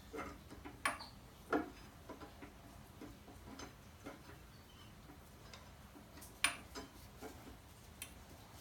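Irregular light clicks and taps from handling brake pads and caliper parts while fitting pads to a motorcycle brake caliper; the sharpest tap comes about six and a half seconds in.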